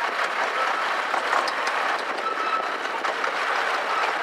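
15-inch gauge miniature railway carriage wheels rolling along the track: a steady running noise with a faint squeal that comes and goes.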